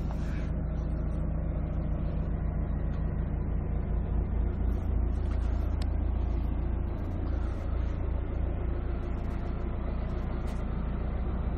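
Hyundai County bus's diesel engine idling steadily, a low even drone heard from inside the converted camper cabin.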